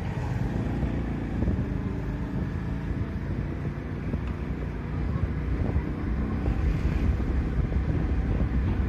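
A vehicle engine running steadily with a low rumble as it drives along the road, with wind on the microphone.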